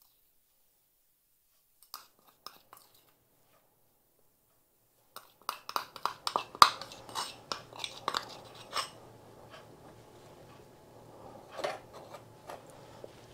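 Metal spoon scraping and clinking against a china bowl as thick icing is scooped and spooned onto cakes: a few clicks about two seconds in, then a quick run of sharp clicks and scrapes from about five seconds in, with a couple more near the end.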